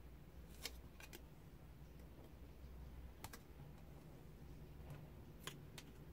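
Several faint, sharp clicks, some in quick pairs, of a thin metal telescoping tube and a strip of steel tape being handled and pressed together, over near silence.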